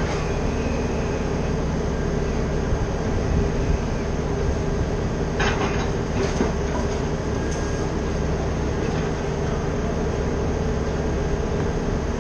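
Heavy tree-service machinery running steadily with a constant engine drone, and a couple of brief knocks a little past the middle.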